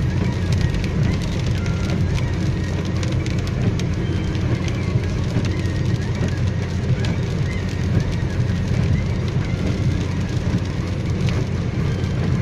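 Steady low rumble and tyre hiss of a car driving on a wet road, heard from inside the car, with scattered light ticks throughout.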